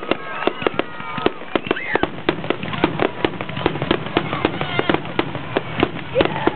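Fireworks finale barrage: a rapid, unbroken string of shell bursts and crackling reports, several every second.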